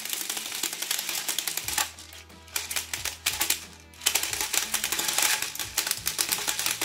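Hotour hand-crank airsoft speedloader cranked to feed BBs into a magazine: fast, dense ratcheting clicks with BBs rattling through. The clicking eases off about two seconds in and picks up again around four seconds in as cranking resumes.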